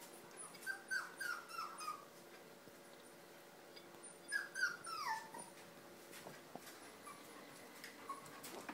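A young pet's short, high cries, each falling in pitch: a quick run of about five within the first two seconds, then three more around four to five seconds in, the last sliding lower. A faint steady hum runs underneath.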